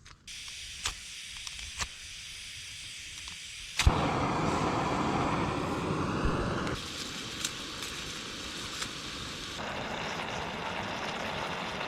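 Butane camp stove: a steady gas hiss with a few clicks, then a sharp click about four seconds in as the burner lights, followed by the steady, louder rush of the burning flame, which shifts in level twice.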